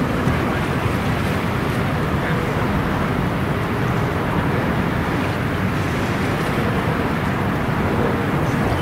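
Steady low rumbling of wind on the microphone with the wash of the river, no distinct event standing out.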